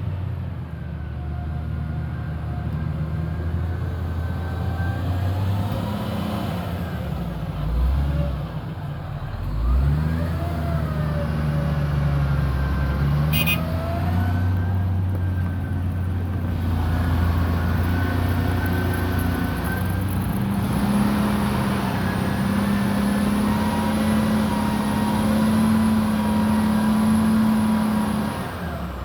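Heavy vehicle engine running for a long stretch, its pitch dropping and rising sharply a few times about a quarter of the way in, then holding steady and slowly climbing higher in the second half, like an engine held under load. A faint high whine runs with it near the end.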